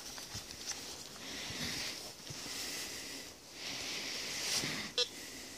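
Metal detector search coil dragged over leaf litter and dirt, rustling and scraping in two long spells. Near the end, the Teknetics Eurotek Pro metal detector gives one short beep, its signal for a metal target under the coil.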